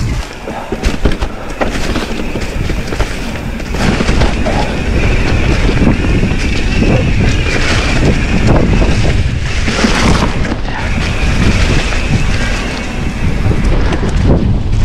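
A Pivot Switchblade full-suspension mountain bike riding a rough trail: wind buffeting the microphone over tyre rumble and the bike rattling over rocks and roots, with a few sharp knocks in the first couple of seconds. It gets louder about four seconds in, with a high buzz through long stretches of the middle.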